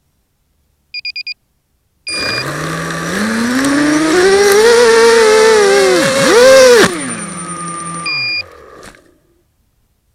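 Four short electronic beeps, then an FPV drone's electric motors and propellers spinning up, the whine rising and wavering in pitch with the throttle and dipping sharply once. About seven seconds in the motors cut, another beep and tone sound, and the whine winds down to a stop.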